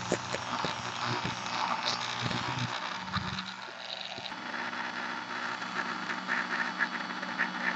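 Dremel rotary tool running a fine wire brush over a printed circuit board, a steady motor hum under a scratchy scrubbing that clears battery-acid residue off the contacts. The hum dips briefly about halfway through.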